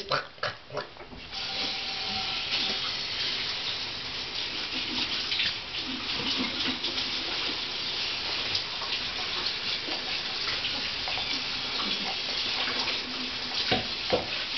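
A steady hissing noise starts about a second in, with scattered light clicks and a soft knock near the end.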